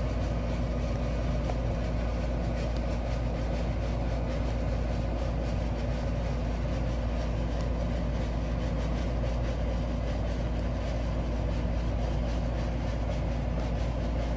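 Steady low rumble with a constant hum, unchanging throughout and without speech.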